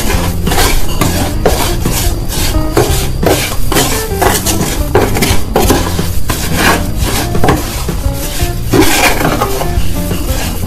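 A spoon stirring and scraping a wet mix of crushed brick, salt and garlic in a plastic tub, in a quick run of repeated gritty strokes.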